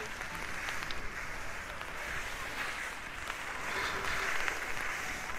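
Skis sliding over hard-packed snow: a steady scraping hiss that grows louder near the end.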